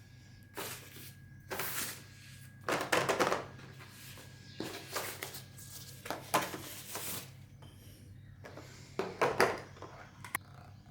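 Packaging handled during an unboxing: bursts of rustling and scraping from box and wrapping, coming irregularly about seven times.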